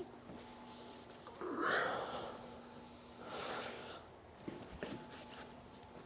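A towel wiping down the planer's metal guide parts: two soft swishing rubs, with a few light clicks and knocks near the end.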